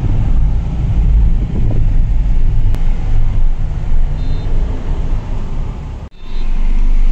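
Moving car's road and engine noise, a steady low rumble, cutting out briefly about six seconds in.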